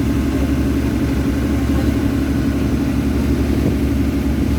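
Tour boat's engine running steadily, a loud, even low drone.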